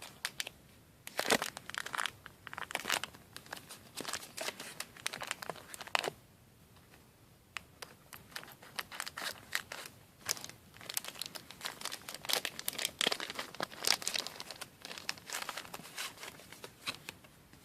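Plastic wrapper of a Pokemon trading card pack being crinkled and torn open by hand, in irregular crackling spurts with a brief lull partway through.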